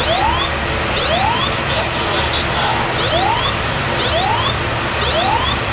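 Fire alarm sounder giving a repeated rising sweep tone, about one sweep a second. It is the alarm of a fire suppression system that has gone into alarm and is putting out the fire.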